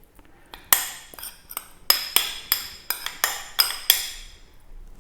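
Metal spoon clinking repeatedly against a mixing bowl, about a dozen sharp ringing taps, roughly three a second.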